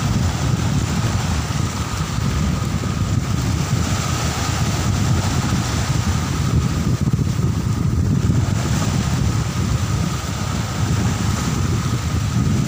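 Wind buffeting the microphone in a steady loud rumble, with surf washing in around the shallows.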